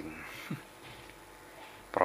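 Faint handling noise: a short rustle and a soft knock as the drone and a card of plastic propellers are moved about, with low room noise between.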